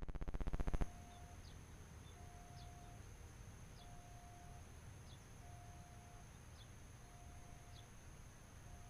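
A rapid rattle of clicks lasting under a second at the start. Then a quiet outdoor background in which a bird calls: a level note repeated about every 1.3 s, with short, high, falling chirps in between.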